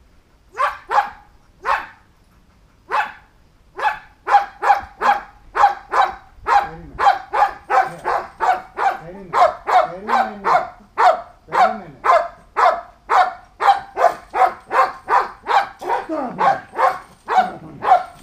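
A dog barking: a few separate barks at first, then fast steady barking at about two to three barks a second from about four seconds in.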